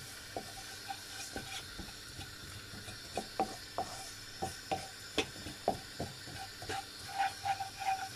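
Chili flakes frying in a hot nonstick pan with a faint steady sizzle, while a wooden spatula stirs them, making short scrapes and taps against the pan that come more often from about three seconds in.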